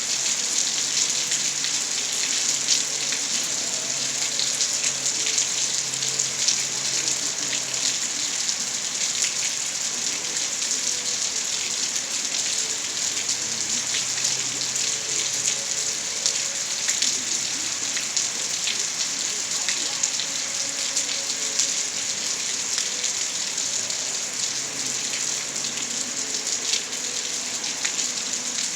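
Steady, continuous rainfall, with many individual drops ticking on a nearby surface.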